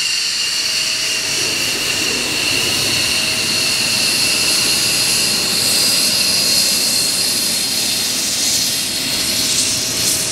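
Belgian Air Force F-16's single Pratt & Whitney F100 turbofan at low power while the jet taxis, a steady high turbine whine over a rushing exhaust roar that grows fuller about a second and a half in.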